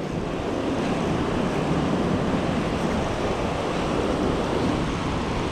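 Gulf surf breaking and washing up the sand in a steady rush, with wind buffeting the microphone.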